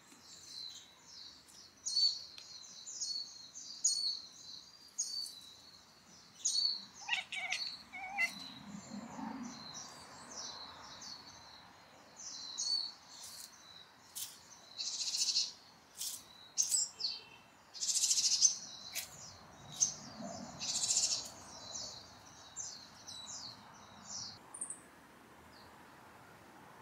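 Small birds chirping and calling in quick, repeated series, with a few louder calls about halfway through; the calls die away shortly before the end.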